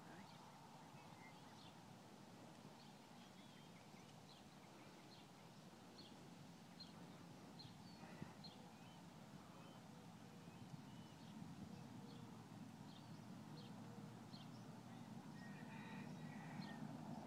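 Faint, regularly repeated short high chirps of a small bird, about one every three-quarters of a second, over a low steady rumble that grows a little louder near the end.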